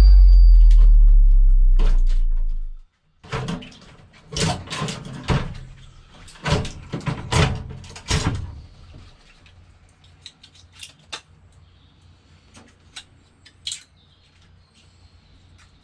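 A music track ends on a held low note that fades out. After a short gap comes a run of sharp knocks and clatters, then a few faint scattered clicks.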